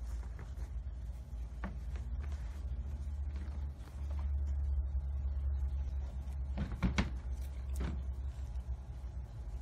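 A few light knocks and rattles from a cat rolling and swatting inside a wire crate as a hand plays with it, loudest about seven seconds in, over a steady low hum.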